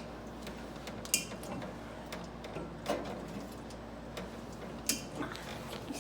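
Drink cans and bottles knocking and clinking as they are set into a mini fridge: a few sharp clacks about two seconds apart, the loudest about a second in, over a low steady hum.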